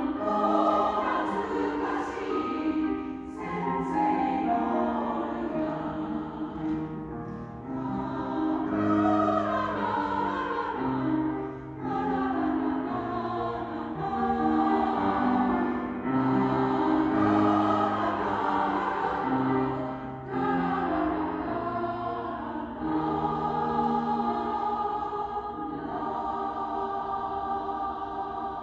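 Two choirs combined, singing a Japanese choral song in sustained, legato phrases with accompaniment.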